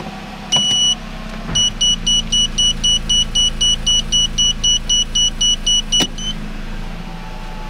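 Nissan Qashqai's reverse warning beeper heard in the cabin as the CVT selector goes into reverse. One longer high beep comes first, then a fast run of short beeps, about three and a half a second, that stops about six seconds in as the lever comes back out of reverse. The engine idles underneath, with a few sharp clicks.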